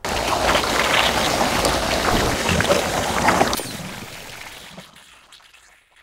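Slime blower firing: a loud gushing spray that starts suddenly, holds steady for about three and a half seconds, then trails away over the next two.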